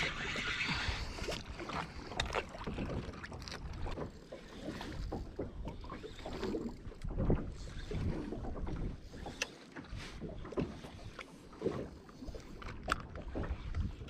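Small fishing boat at sea, with a low rumble of wind on the microphone and irregular sharp knocks and clicks on board.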